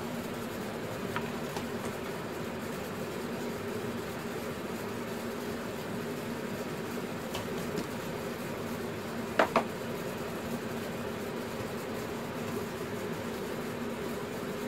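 A steady mechanical hum, with two sharp clicks about nine and a half seconds in.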